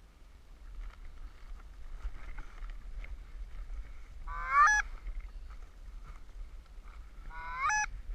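Goose honking: two loud, sharp honks rising in pitch, about four and a half and seven and a half seconds in, over fainter honking throughout.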